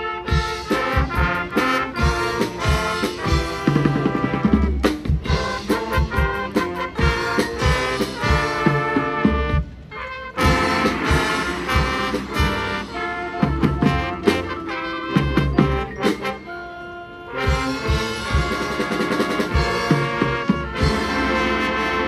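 High school marching band playing its field show: a brass-led passage with drum and percussion hits, easing briefly to quieter moments about ten seconds in and again around sixteen seconds.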